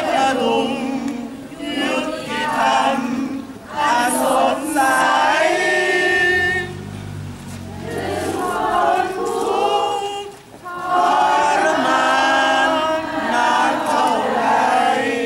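A crowd of people singing together in unison, in phrases with short breaths between them.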